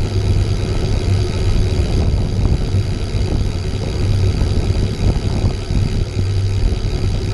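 Novatec rear hub's freewheel ticking as a road bike coasts, under loud, uneven wind buffeting on the microphone, with a steady high whir.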